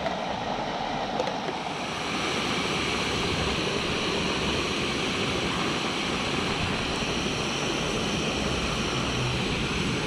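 Jobsworth X3 gas stove burner on a Coleman C500 gas cartridge running steadily under a pot of water that is not yet boiling, a steady rushing noise that grows slightly louder about two seconds in. Light clicks of the pot lid being set on near the start.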